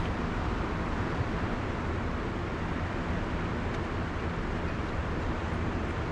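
A boat's motor running steadily, under a rush of wind and water.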